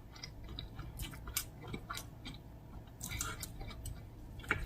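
A person chewing and biting fried whiting close to the microphone, with irregular small clicks from the mouth and crisp coating.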